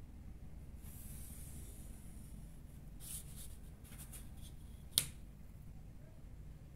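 Marker pen drawn along a plastic ruler on paper: a faint scratchy stroke lasting about a second and a half, then shorter rubbing as the ruler is shifted, and one sharp click about five seconds in.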